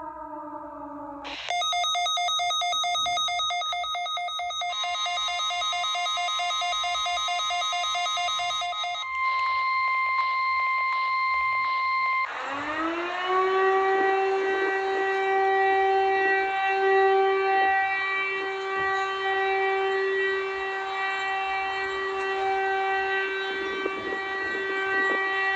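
A string of emergency alert alarm sounds. A falling multi-tone alarm ends about a second in, followed by a rapid electronic pulsing alarm of several tones that changes pattern about five seconds in, then two steady beeping tones held together. About twelve seconds in, a civil defence siren winds up quickly and holds a steady wail.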